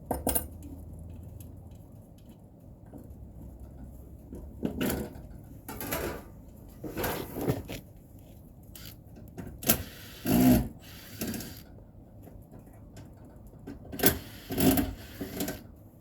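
Short, irregular bursts of tool and handling noise from hands-on work on an air conditioner's outdoor unit during a condenser fan motor change. The bursts come about a dozen times, each well under a second, over a low steady background.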